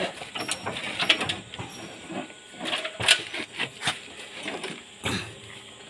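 Irregular metallic clicks and knocks from hand work on a truck gearbox resting on a chained transmission jack.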